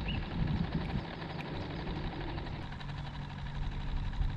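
A boat motor running steadily at low speed, a low even hum with no change in pitch.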